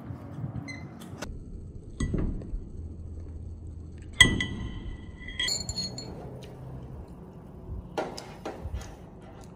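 Glasses clinking together twice, each clink ringing on with clear high tones, the first for about a second, among light knocks of dishes and cutlery.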